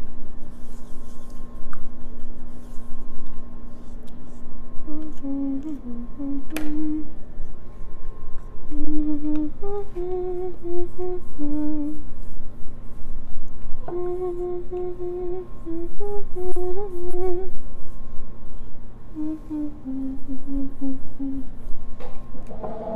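A person humming a slow tune in short phrases, over a steady low hum and the faint scratching of a paintbrush stroking the backdrop.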